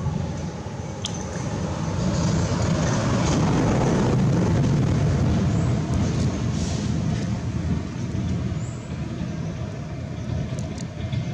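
Low rumble of a passing motor vehicle's engine, building up about two seconds in and easing off after about six seconds.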